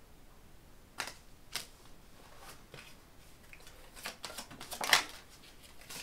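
Tarot cards being handled and shuffled. There are two sharp card snaps about a second and a second and a half in, then a quick run of card clicks from about four seconds in, loudest just before five seconds.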